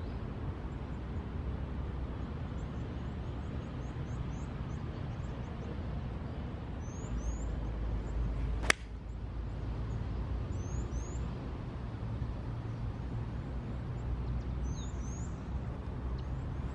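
A golf iron strikes the ball once, a single sharp click about halfway through. Under it runs a steady low rumble, with birds chirping now and then.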